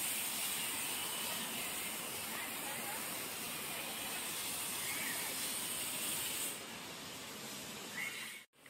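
A steady hiss of ambient noise that eases slightly about two-thirds of the way through and breaks off in a brief silence near the end.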